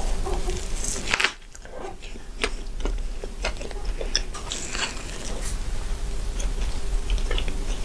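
Close-miked eating of a soft cheeseburger: a bite, then chewing with many small wet mouth clicks.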